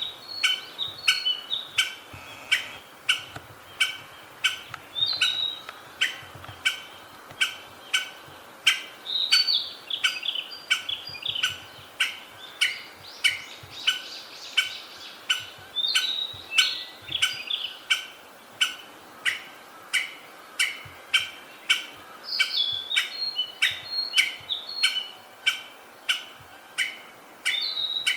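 Wild songbird singing short phrases of whistled, gliding notes every few seconds, over a steady train of sharp clicks about twice a second.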